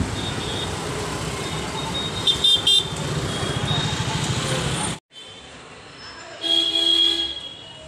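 Busy street traffic with three short vehicle-horn toots about two and a half seconds in. The sound cuts off suddenly about five seconds in, leaving quieter indoor room sound.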